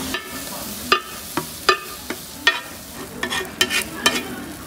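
A flat metal spatula scraping and clacking on a hot iron griddle pan as rice is chopped and stir-fried into Korean dakgalbi fried rice (bokkeumbap), in about ten sharp, irregular strokes over a steady sizzle.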